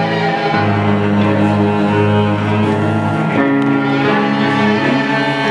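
Live instrumental passage: a bowed cello and violin holding long sustained notes, moving to new notes about half a second in and again about three and a half seconds in.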